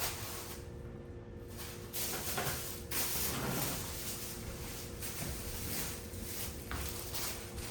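Groceries being handled and unpacked: rustling and a few sharp knocks as items are moved and set down, over a faint steady hum.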